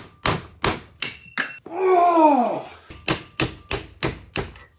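Repeated hammer blows on a Hornady reloading die clamped in a vise, about three a second, each with a short metallic ring, driving out a stuck .300 Win Mag case. Midway the blows pause for a drawn-out falling tone, the loudest sound, before the blows resume.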